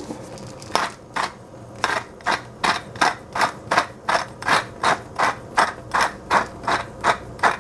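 Hand-held spice grinder being twisted over a pot, grinding in short, even strokes of about two or three a second.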